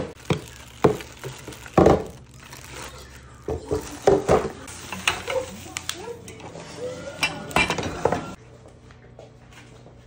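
A plastic shower chair being unwrapped and handled: bubble wrap rustling and crinkling, with a string of sharp clattering knocks as its hard plastic parts and packing pieces are lifted and set down on a countertop. It grows quieter about eight seconds in.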